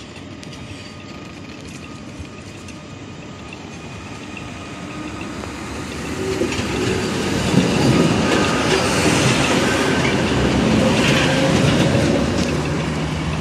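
Old articulated tram approaching and passing close by, its wheels rumbling and clacking on the rails with a thin steady whine. The sound swells from about five seconds in and is loudest as the tram goes past.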